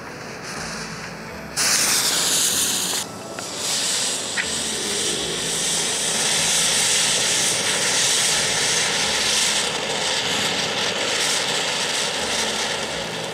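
A small ground fountain firework hissing as it sprays sparks. The hiss starts suddenly about a second and a half in, dips briefly, then runs on steadily, with a single sharp pop about four seconds in.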